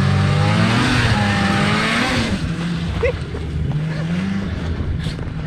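A motor vehicle's engine held at high revs with a loud rushing hiss. About two seconds in the revs drop and the hiss fades, and the engine settles to a lower, steady run with a brief squeak about three seconds in.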